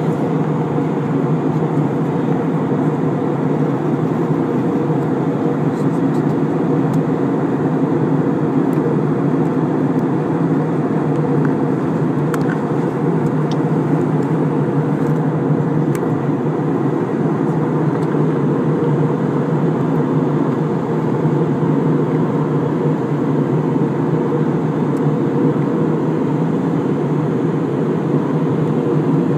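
Steady roar of an Airbus airliner's engines and airflow heard inside the passenger cabin while the aircraft descends for landing.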